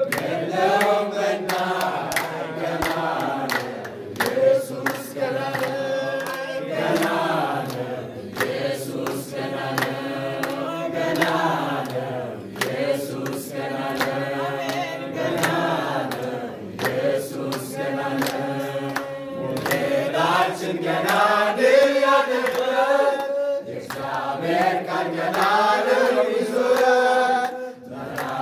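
Church congregation singing together in chorus, with hand clapping.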